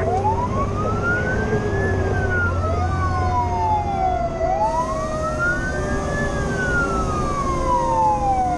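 Fire engine's Federal Q mechanical siren wailing, winding up and falling back slowly twice, heard from inside the cab over the truck's running engine and road noise.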